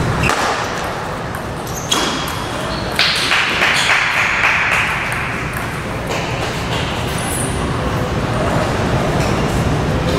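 Table tennis ball clicking off bats and table during play, sharp irregular ticks over a steady low background noise.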